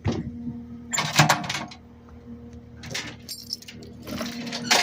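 A chain load binder being released and the chain rattling loose: a few separate metallic clanks and rattles over a steady low hum.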